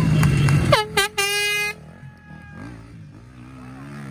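Off-road enduro motorcycle engine running hard and loud, cut off abruptly under a second in. Then a brief high-pitched tone drops in pitch and holds for about half a second. After it, a faint distant motorcycle engine revs up and down.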